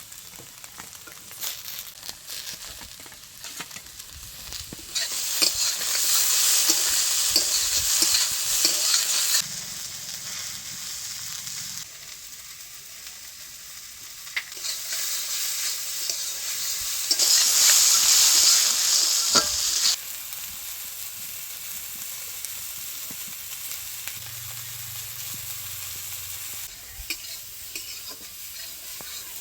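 Food frying and sizzling in a pan while it is stirred, with scattered clicks and scrapes from the stirring. The sizzle grows loud twice, about five seconds in and again about seventeen seconds in, and each time drops back suddenly a few seconds later.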